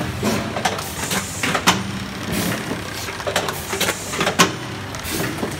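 Quiel coleslaw cup filling and lidding line running: a steady drive hum under frequent, irregular mechanical clacks and short bursts of noise.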